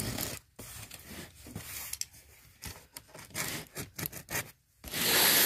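Utility knife blade slitting packing tape along a cardboard box seam, in short scratchy strokes, with a louder, longer hiss near the end.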